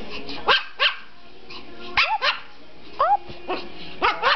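A Pomeranian yapping for a treat: about nine short, high-pitched barks in irregular pairs and groups.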